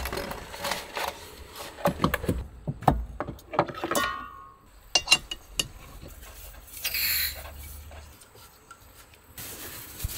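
Camping gear handled on a wooden table: clicks, knocks and a brief squeak as a gas canister is taken from its pouch, then a short hiss about seven seconds in as a small stove burner is screwed onto the canister.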